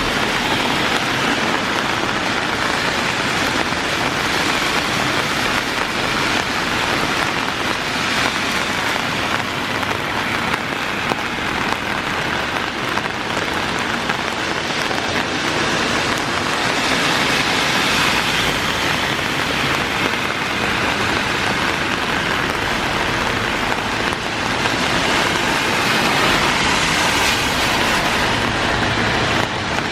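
Heavy rain pouring steadily. Twice, in the middle and near the end, a swell of tyre hiss from a car passing on the wet road rises and fades.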